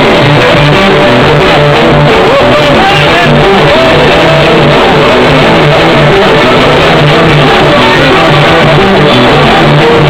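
Live band music blaring from a trio elétrico's sound system: electric guitar over a steadily repeating bass line, very loud.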